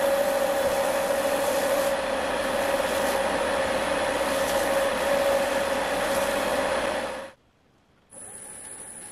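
Wood lathe running, a steady hum with a rubbing sound over it. It cuts off suddenly about seven seconds in, and after a short gap a much fainter steady hiss starts.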